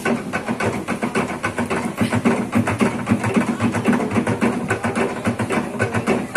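Manus garamut slit-log drums beaten in a fast, even rhythm of several strokes a second.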